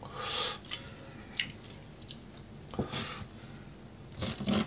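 Water splashing and dripping as a Japanese sandfish (hatahata) is lifted out of a bowl of water, followed by short knocks of a knife cutting fish on a plastic cutting board, with a cluster of knocks near the end.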